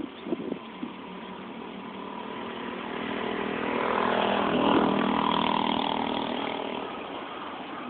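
Sightseeing boat's engine running as the boat passes, growing louder to a peak about halfway through and then fading.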